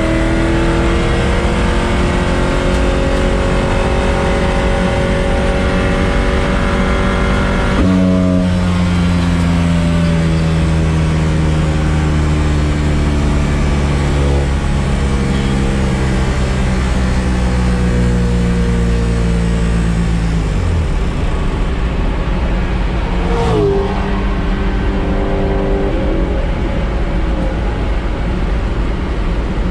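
Corvette race car's LS-series V8 running hard on track, heard onboard. Its note jumps about 8 seconds in, sinks steadily, then falls sharply about 20 seconds in, and a sharp crack comes a few seconds later.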